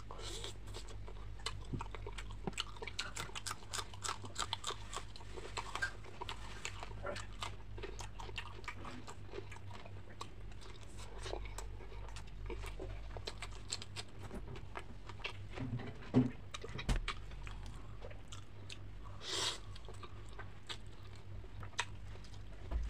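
Close-miked chewing and biting of fried fish eaten by hand: many short crunches and wet mouth clicks, with a sharper crack about 16 seconds in.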